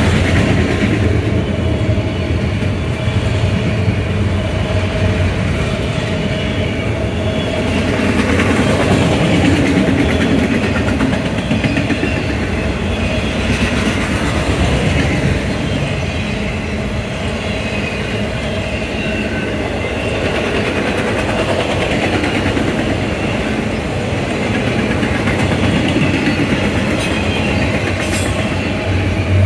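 A train passing on the mainline track, with a continuous rolling noise of wheels on rail that holds steady throughout.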